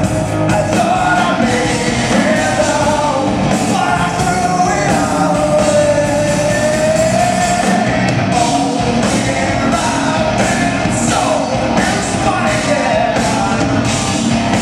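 Male lead singer and rock band performing live: a sung melody with long held notes that bend in pitch, over a loud, dense band with steady drum hits.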